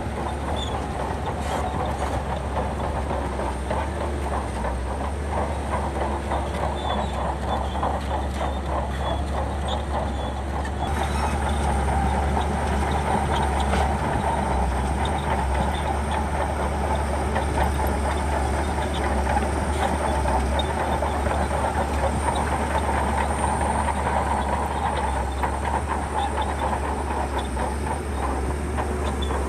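Shantui crawler bulldozer working, its diesel engine running under a rapid, steady clanking of the steel tracks; it gets a little louder about eleven seconds in.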